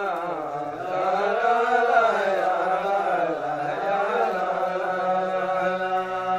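A voice chanting in a long, drawn-out melody that wavers slowly up and down, with a steady low tone held underneath.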